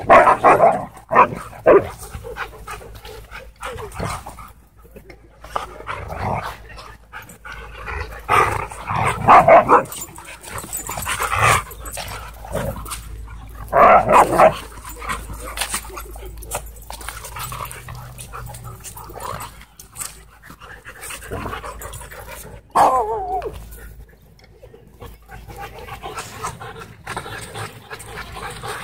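Huskies wrestling, barking in repeated loud bursts with panting between them.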